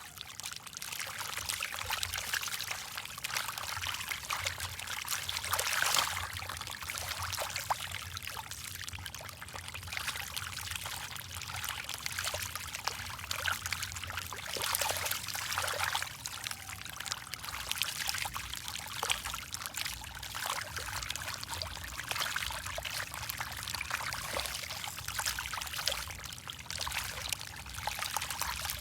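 Fish feeding at the water surface: continuous, irregular splashing and slurping of water, with a faint low steady hum underneath.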